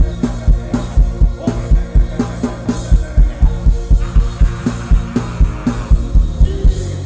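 Instrumental gospel worship music from a live band, with a steady drum beat over sustained low notes.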